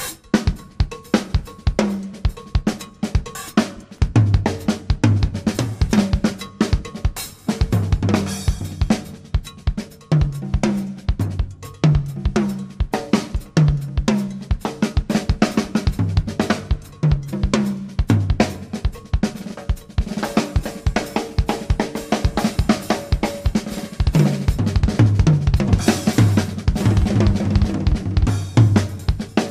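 Drum kit played solo at speed: dense snare and bass-drum strokes with cymbals, broken by repeated fills that run down the toms from high to low.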